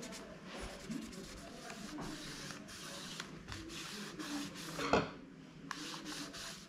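Cloth rubbing and wiping over the bare keyboard bay of a Lenovo ThinkPad T480, a dry, scratchy rasp in short strokes, with one louder knock about five seconds in.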